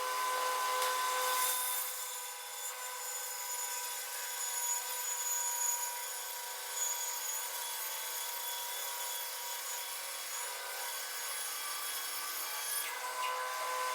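Centauro 700 vertical bandsaw running steadily as it rips lengthwise through an acacia log. It cuts with a dull crosscut firewood blade that is not meant for rip cuts.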